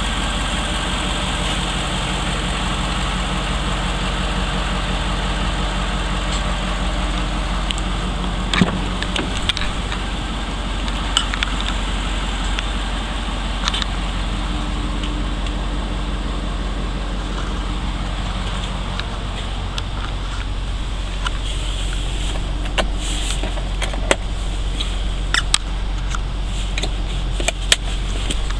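Ford 6.7-litre Power Stroke turbodiesel V8 idling steadily. Scattered sharp clicks and knocks come in the later part as the rear seat hardware is handled.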